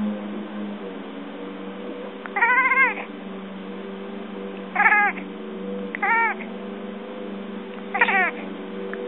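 Domestic cat chirping at a pigeon seen through a window: four short, arching chirps a second or two apart, the first the longest, over a steady low hum.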